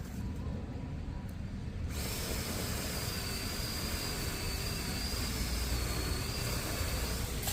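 Power saw cutting through a tree branch: it starts about two seconds in and runs steadily for about five seconds with a high whine over a hiss of cutting, then stops.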